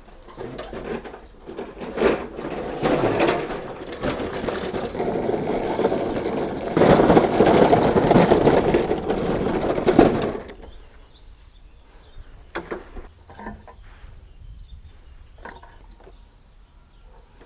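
Petrol push lawn mower being wheeled out and rolled along a paved path, its wheels and body rattling and rumbling over the paving. The rattle stops about ten seconds in, and a few light clicks and knocks follow as the mower is handled on the grass.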